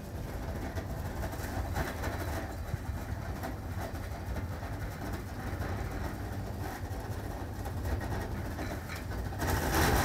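Electric food processor running steadily, blending a sticky carob, date and shredded-coconut mixture; it gets louder for a moment near the end.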